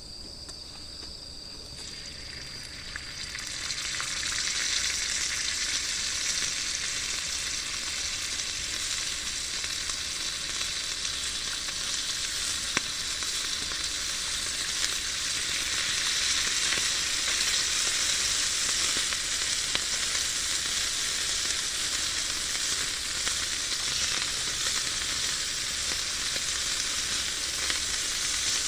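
Food sizzling on a hot iron griddle over a campfire, swelling in over the first few seconds as it starts to fry and then going steadily.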